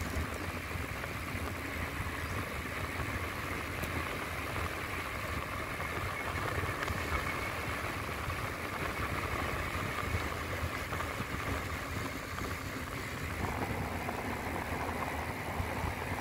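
Steady wind noise on the microphone mixed with the rumble of bicycle tyres on asphalt, during a fast downhill coast.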